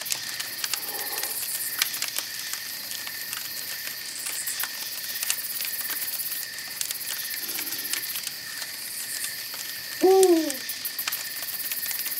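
Night campfire ambience: a fire crackling with scattered pops over a steady high hiss, and one owl hoot, falling in pitch, about ten seconds in.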